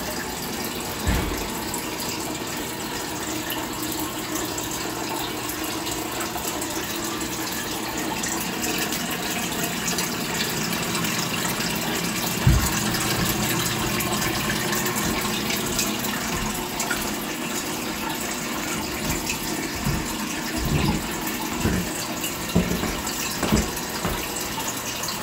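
A steady rushing hiss, even from low to high pitch, with a few short low thumps: one about a second in, a sharper one around the middle, and several in the last few seconds.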